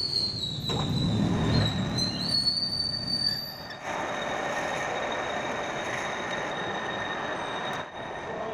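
Metal lathe running while turning a white plastic bushing, with a high squealing whine that wavers in pitch over the first four seconds, then settles into a steadier running note.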